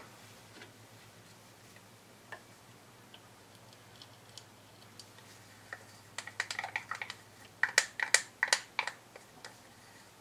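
Light plastic clicks and taps of small plastic paint cups and a wooden craft stick knocking against a larger plastic cup as acrylic paint is poured and scraped into it. Scattered single clicks at first, then a quick cluster of clicks from about six to nine seconds in.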